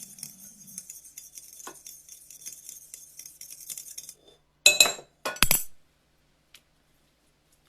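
Kitchen dishes clinking: light handling clicks over a faint hiss, then two sharp ringing clinks about half a second apart, a little past the middle.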